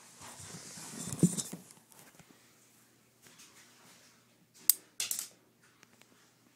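Plastic clicks and handling rustle from a homemade spring-loaded pen gun, built from a clicking ballpoint pen's spring and clicker, being cocked and fired. There is a sharp snap about a second in, then another sharp click later, followed by a brief rustle.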